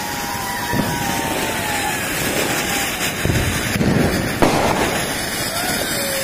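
Ground fountain fireworks (flower pots) hissing steadily as they spray sparks, with faint drawn-out falling whistles over the hiss and a sharp crack about four and a half seconds in.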